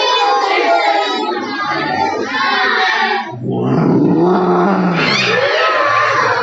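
A class of young children imitating a lion's roar together: loud, drawn-out shouted roars from many voices at once, rising and falling in pitch.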